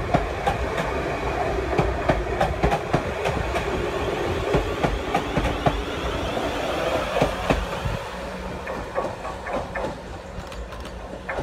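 Class 444 Siemens Desiro electric multiple unit running past, its wheels clicking over rail joints. The sound fades in the last few seconds as the train moves away.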